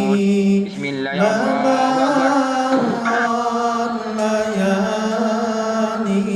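A voice chanting Islamic recitation in long, held notes that slide from pitch to pitch, with short breaths between phrases.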